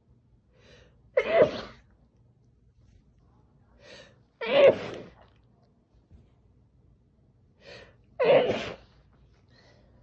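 Three loud sneezes muffled by pressing the face into a towel, about three and a half seconds apart, each preceded by a short, softer in-breath.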